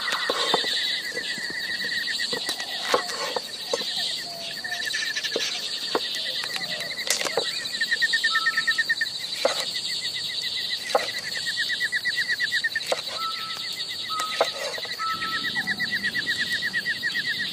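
A large knife cuts through zucchini and eggplant and knocks on a wooden cutting board, with single cuts every second or two. Behind the cuts, a bird sings rapid trills that come and go every few seconds.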